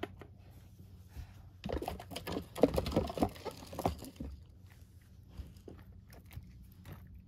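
Toys being handled and moved about during set-up: a quick flurry of light clicks and rattles from about two to four seconds in, then scattered taps.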